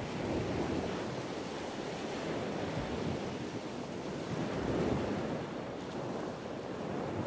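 Sea waves washing and surging, with wind buffeting the microphone; the sound swells and eases twice.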